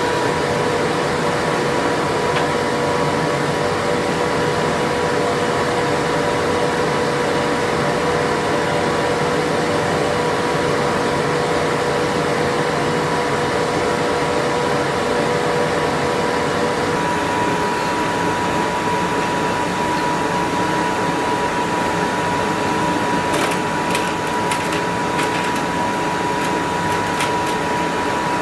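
Forge running steadily: an even rushing noise with a held hum. The lower tone of the hum drops out about two-thirds of the way through, and a few light clicks follow near the end.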